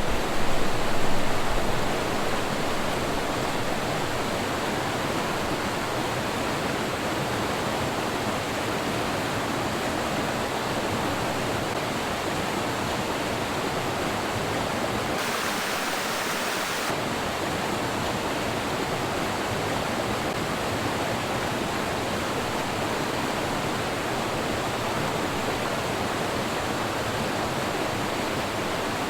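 Steady rush of fast-flowing water from a waterfall and river in a gorge. About halfway through, for a couple of seconds, the deep part of the sound drops away and it turns thinner and hissier.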